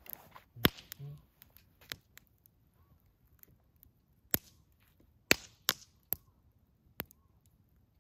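Campfire crackling: sharp, irregular pops of burning wood, about seven in the eight seconds, with quiet between them.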